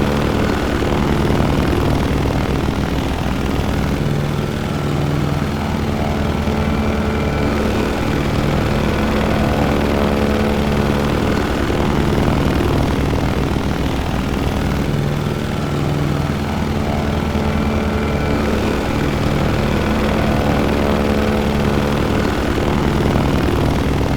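Propeller airplane engine running steadily: a continuous loud drone with a fast beating pulse from the propeller, some of its upper tones slowly gliding up and down.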